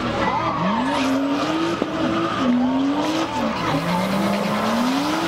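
Drift car's engine revving up and dropping back about three times as it slides, over a constant hiss and squeal of spinning, smoking rear tyres.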